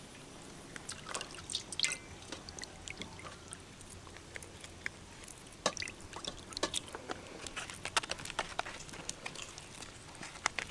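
Water in a stainless steel bowl being stirred by hand as leafy greens are washed: quiet, scattered drips, small splashes and light clinks against the bowl.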